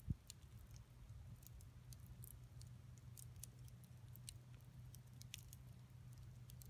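Wood campfire crackling faintly, with sparse small pops and snaps over a low steady rumble, and one soft thump right at the start.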